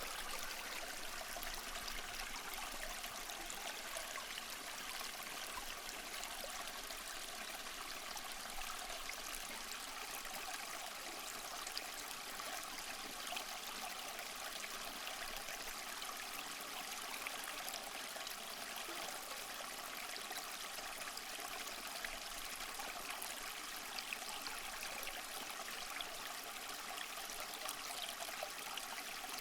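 A small stream flowing, a steady rush and trickle of water with small splashes and bubbles throughout.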